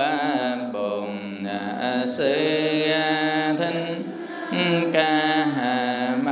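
Vietnamese Buddhist chanting: a monk's voice on the microphone and the seated assembly chant together in slow, drawn-out syllables, each held on a steady pitch before moving to the next.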